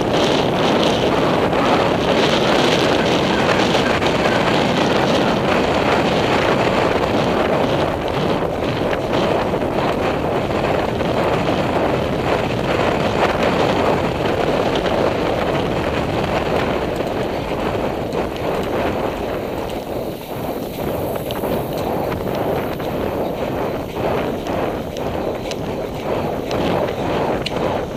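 Wind buffeting a helmet-mounted microphone on a galloping horse, a steady rushing noise, with the horse's hoofbeats thudding through it, clearer in the second half.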